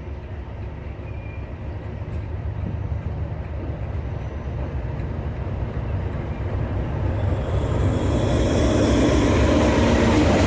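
Heritage railway train running with a steady low rumble, which grows louder and rougher from about seven or eight seconds in.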